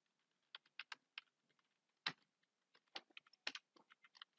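Computer keyboard typing: a run of faint keystrokes in uneven clusters, the loudest about two seconds in.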